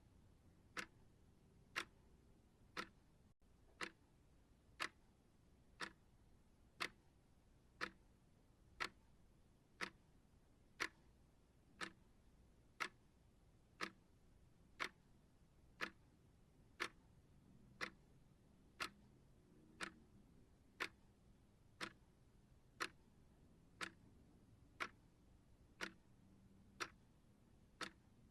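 Timer ticking like a clock: one sharp, even tick each second, steady throughout.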